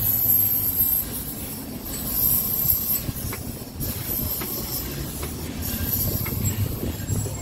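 Steam train running on the rails, with a steady low rumble and a hiss of steam.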